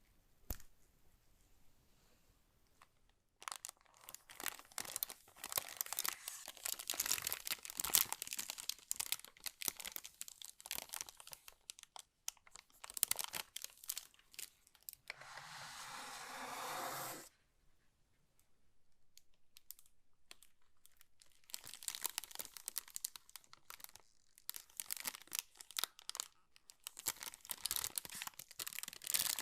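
Keyboard packaging being unwrapped by hand: dense crinkling and tearing of the wrapping in bursts, with one steady rasp lasting about two seconds around the middle.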